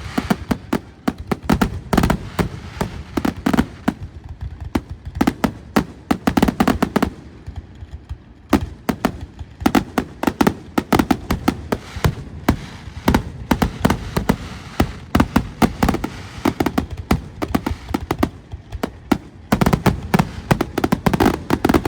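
Fireworks finale: aerial shells bursting in a rapid, irregular barrage of loud bangs and crackles, many per second, thinning out briefly in places and then building again into a dense flurry near the end.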